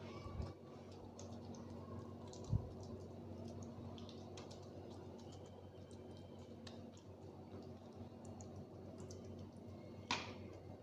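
Faint small clicks and taps of a spoon pressing down pizza filling, over a steady low hum, with one short thump about two and a half seconds in.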